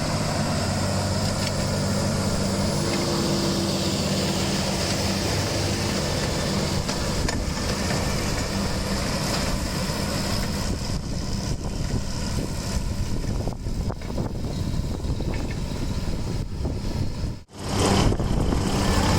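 Tractor engine running steadily with farm machinery working, a continuous low drone; it cuts out for an instant near the end and picks up again.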